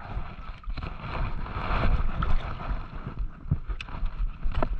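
Wind buffeting the microphone over water sloshing and splashing around the wading angler, with a few small clicks.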